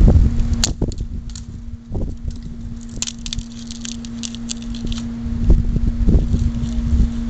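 Wind buffeting the microphone in gusts, with scattered crackling and rustling, densest in the middle, over a steady low hum.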